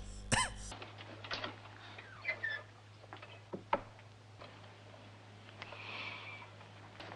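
Quiet room tone with a low steady hum and scattered faint clicks and knocks, after a brief voice sound right at the start.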